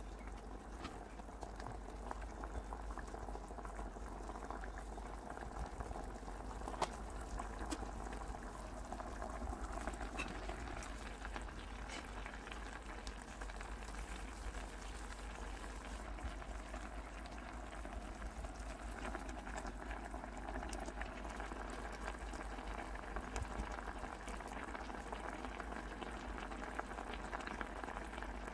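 Water at a steady rolling boil in a small electric pot, with a block of instant noodles softening in it: an even bubbling with occasional faint ticks.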